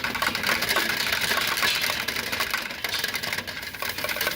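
Drill-driven rotary dryer vent brush spinning inside the duct as its rods are pulled back, the motor running steadily while the bristles scrape and rattle against the duct walls.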